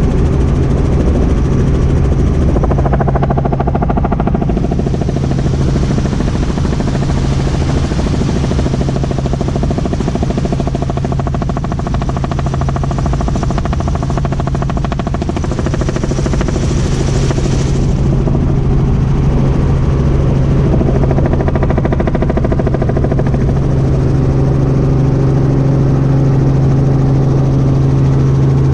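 Robinson R44 Raven II helicopter in flight, heard inside the cabin: a steady, loud drone from its engine and rotors, with a hiss that comes and goes above it.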